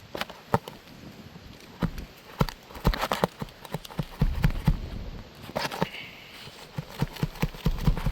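Irregular sharp clicks and knocks of a hand tool working under an asphalt roof shingle to lift it and pry out a staple, with a few patches of low rumble.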